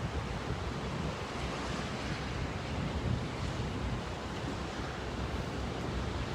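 Wind blowing across the microphone: a steady, rough rushing noise with no distinct events.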